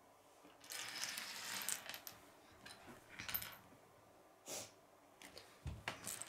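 Small plastic Lego pieces clattering onto a wooden tabletop as they are tipped out, about a second in, then several separate clicks and taps as pieces are picked up and set down.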